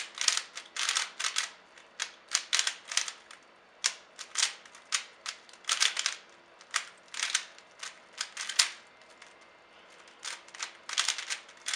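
Cyclone Boys 3x3 speedcube being turned by hand in a speedsolve: quick runs of clacking layer turns with short pauses between, and a lull about nine seconds in.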